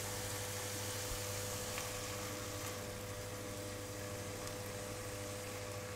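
A steady, faint hum with a thin steady tone and a soft hiss over it; no sizzling or scraping stands out.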